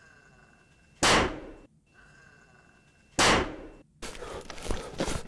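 Two blasts from a double-barrelled shotgun, about two seconds apart. Each is a sharp, loud bang that dies away in about half a second.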